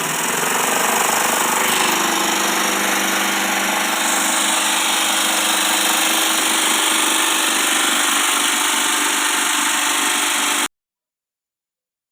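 Homemade table jigsaw built on a sewing-machine mechanism running with a steady, loud mechanical buzz. It cuts off suddenly about ten and a half seconds in.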